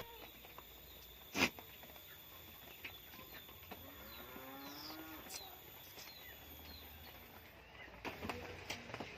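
A goat bleats once, a single drawn-out call lasting a little over a second, starting about four seconds in. A short sharp knock comes earlier, about a second and a half in.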